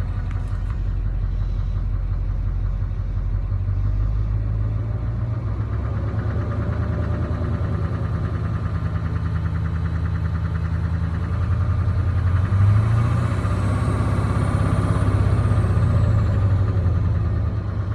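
2006 Duramax 6.6-litre V8 turbo-diesel running steadily with a rapid ticking over the engine note. The engine gets a little louder about two-thirds of the way through, with a faint high whistle rising and falling. The owner is unsure whether the tick comes from the exhaust manifold or the injectors.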